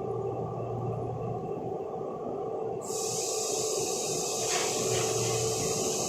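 Six-sided CNC drilling machine running with a steady hum of level tones; about three seconds in, a loud hiss starts abruptly and carries on.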